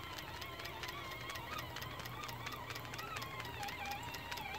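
Stuart Williamson model steam engine running on live steam, with a quick, even ticking from the eccentric rod on its eccentric sheave.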